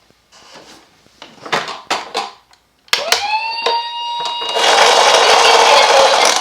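Light plastic clicks and knocks of toy cars being handled. About three seconds in, a toy ambulance's electronic siren sounds a steady high tone, with a loud hiss over it from about halfway. Right at the end it drops to the lower note of the Japanese hi-lo 'pii-poo' ambulance siren.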